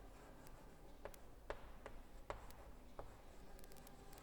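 Faint scratches and soft taps of handwriting, with a few scattered small clicks as a pen moves across the page.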